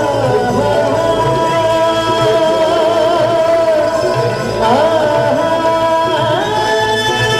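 A male Sufi singer singing into a microphone over instrumental accompaniment: long held notes with wavering, ornamented turns, moving up to a higher held note near the end.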